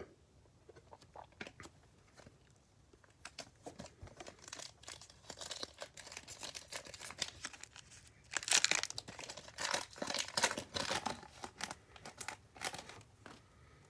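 A trading-card pack wrapper being torn open and crinkled, in scattered crackles with louder tearing about eight and a half and ten seconds in.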